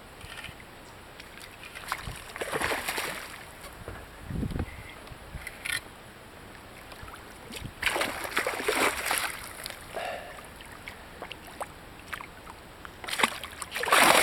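Hooked grass carp thrashing at the water's surface, splashing in several bursts, the loudest near the end right beside the kayak.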